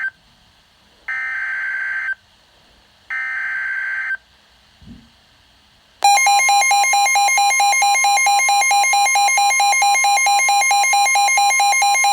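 Midland WR-120 weather alert radio receiving a warning: two short buzzy digital data bursts, about a second each, the SAME header that opens a NOAA Weather Radio alert. About six seconds in, a loud, rapidly pulsing two-tone alarm starts and holds steady.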